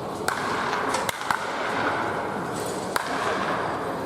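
Sharp cracks of a baseball bat hitting pitched balls during indoor batting practice, with further knocks in between, over steady background noise.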